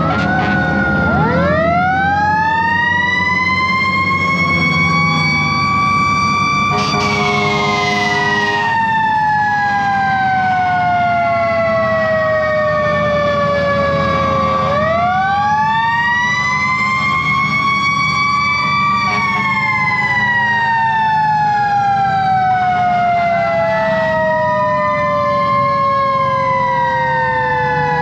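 Fire engine sirens winding up quickly and then slowly winding down, three times over, the wails overlapping one another. About seven seconds in, an air horn blasts for about two seconds, and the truck's Detroit Diesel 8V71 engine runs underneath throughout.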